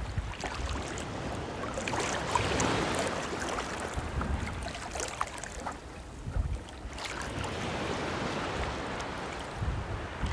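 Water splashing and lapping around a Labrador retriever as it paddles while swimming.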